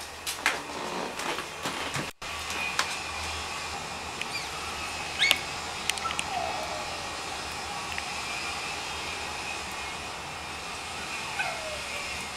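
A dog calling from a distance: two short falling whines, about six seconds in and again near the end, over a steady background hum.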